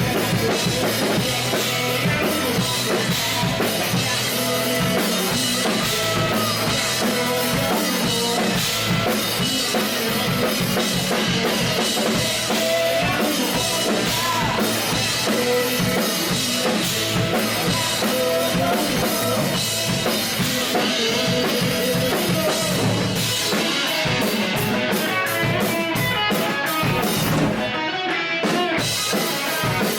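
A band playing live rock music, led by a drum kit with bass drum and snare. Near the end there is a run of rapid, evenly spaced drum hits.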